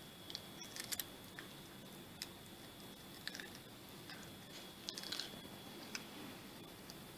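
A cat biting and chewing a raw cucumber: soft, irregular crunches and clicks of its teeth on the cucumber.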